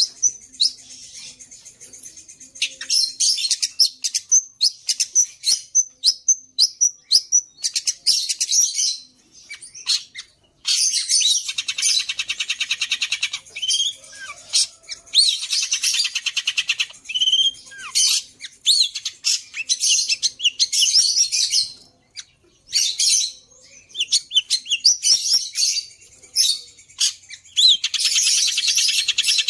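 Long-tailed shrike (pentet) singing a varied, mimicking song: bursts of fast chattering and buzzy rattling trills mixed with sharp high notes, broken by a few short pauses.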